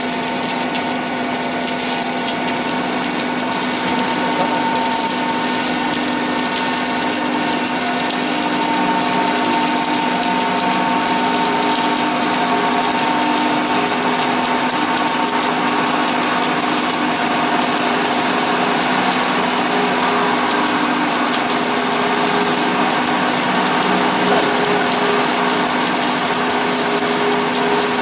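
Automatic pipe welding station welding a carbon steel pipe: a steady hiss with faint hums that come and go.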